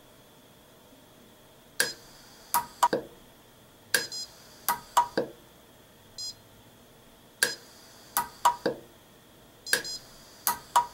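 Orion mPulse pulse arc welder firing again and again at the junction of two fine thermocouple wires: a dozen or more sharp snaps, irregularly spaced and some in quick pairs, starting about two seconds in, as the wires are tacked together.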